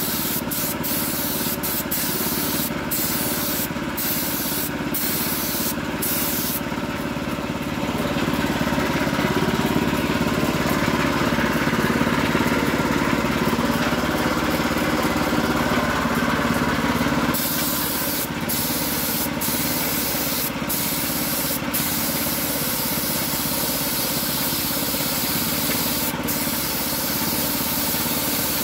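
Air spray gun hissing steadily as paint is sprayed onto a motorcycle wheel, with brief breaks in the hiss as the trigger is let off and pressed again. For about ten seconds in the middle a louder, lower running sound with a steady hum joins it and then cuts off sharply.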